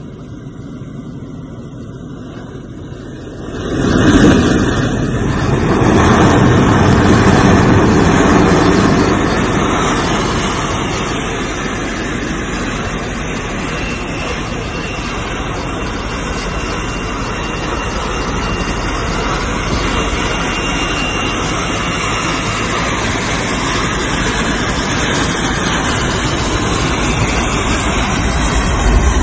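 Helicopter cabin noise heard from on board: a steady, loud rush of engine and rotor noise. It jumps sharply in level about four seconds in and stays loud.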